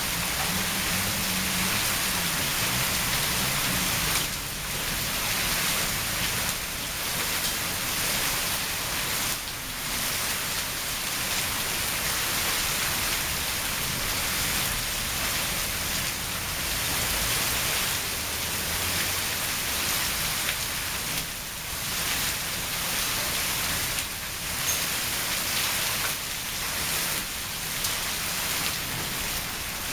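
Heavy rain in a wind and hail storm: a dense, steady hiss that dips briefly every few seconds.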